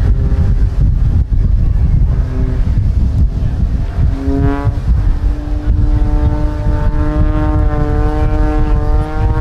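Aerobatic propeller plane's engine in a smoking tumbling dive: a buzzing engine drone that jumps up in pitch about halfway through, then holds steady. Heavy wind buffets the microphone throughout.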